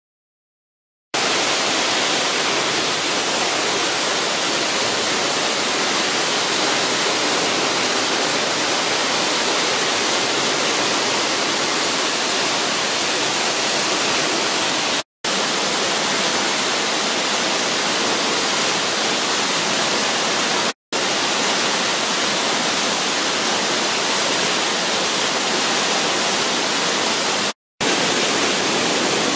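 A waterfall rushing loudly and steadily close by, starting about a second in. Three brief dropouts to silence break it where the footage is cut.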